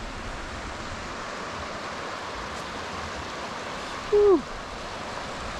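Rock Creek rushing steadily. About four seconds in, a brief, loud tone falls in pitch.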